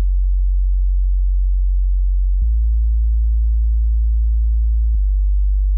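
Subwoofer test tone: a loud, steady, very deep sine tone that steps to a different low pitch about every two and a half seconds.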